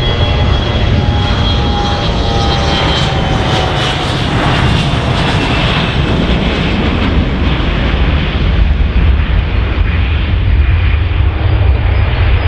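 An airplane's engines going past close by: a loud, steady rumble with whining tones that fall in pitch as it passes. The high hiss is loudest about four seconds in and then fades.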